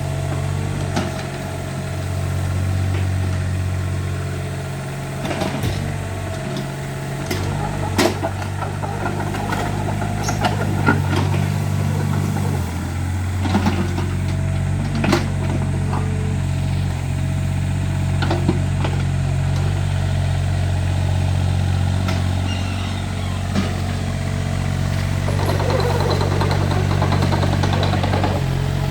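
Mini excavator's engine running steadily, with several sharp knocks and clanks through the middle and a stretch of rattling near the end as the machine moves.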